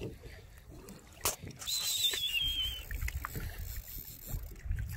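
Wind buffeting the microphone and water moving against a small boat's hull, with a single sharp knock about a second in. A brief wavering whistle sounds around two seconds in.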